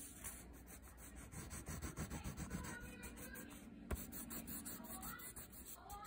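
Black oil pastel rubbed back and forth on paper in quick, faint strokes as an area is coloured in, with a single sharp tap about four seconds in.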